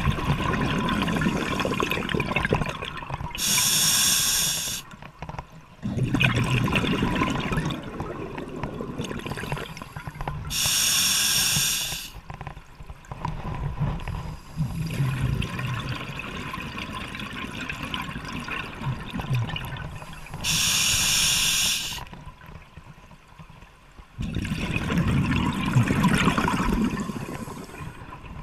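A scuba diver breathing through a regulator underwater. There are three sharp hissing inhalations, each about a second and a half long, and each is followed by a long bubbling exhalation that rushes past the camera.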